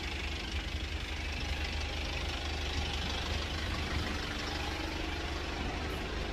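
Steady street noise with a low engine hum, as from an idling vehicle or passing traffic.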